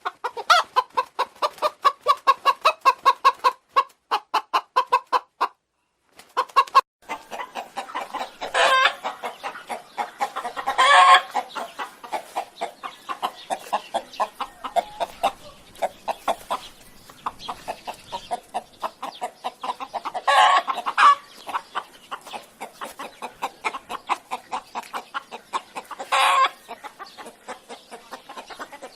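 Chickens clucking in quick runs of short notes, about five a second, with a brief break about six seconds in. After the break the clucking gets busier, with four louder, longer squawks cutting through.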